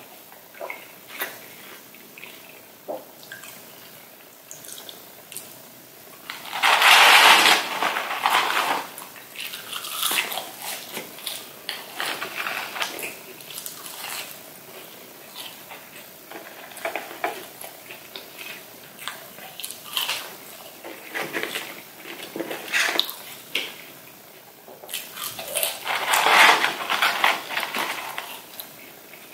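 Close-miked eating sounds: a person chewing chicken nuggets and french fries, with wet mouth noises and crisp crunches. There are two louder spells of chewing, about seven seconds in and again near the end.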